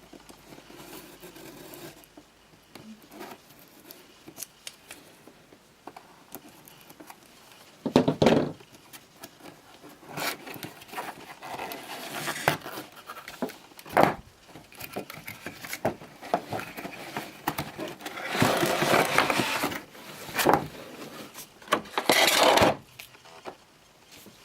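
Cardboard toy boxes being handled and opened: irregular scraping, rustling and knocks, with a loud knock about eight seconds in and longer scratchy stretches near the end.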